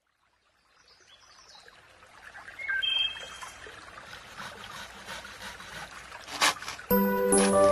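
Outdoor ambience with a faint trickling hiss and a few short bird-like chirps, then a single sharp crack. Gentle background music comes in near the end.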